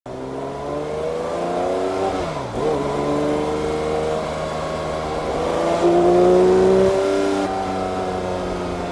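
Porsche 911 S/T's 4.0-litre flat-six engine and exhaust under acceleration, its pitch climbing through the revs, then dropping and climbing again after a gear change about two and a half seconds in.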